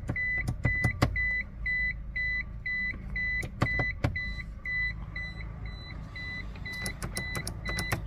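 A Toyota Prius's warning chime beeping steadily, a short high beep about twice a second, while the car will not power on, with no lights on the dash. Several sharp clicks are mixed in, including a quick run of them near the end.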